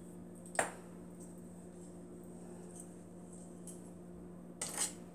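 Quiet kitchen room tone with a steady low hum, broken by a single sharp click under a second in and a couple of short, light knocks of kitchenware being handled near the end.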